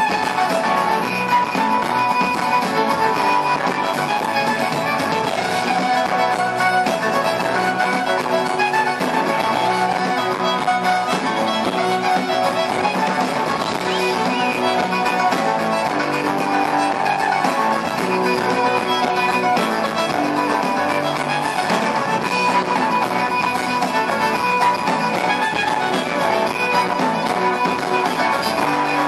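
Fiddle playing a traditional Irish reel, backed by a live band with guitar.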